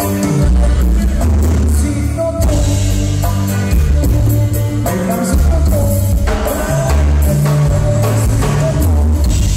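A live band playing at full volume: button accordion, electric bass, drum kit and congas, with a strong bass line under the accordion melody.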